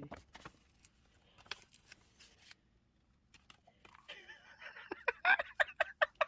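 A few light clicks of handling a package, then a woman's excited, breathy laughter in short, evenly spaced bursts, about four a second, starting about four seconds in.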